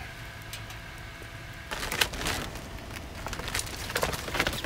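Clear plastic urethane window sheet crinkling and crackling irregularly as it is handled, starting about a second and a half in after a stretch of faint room hum.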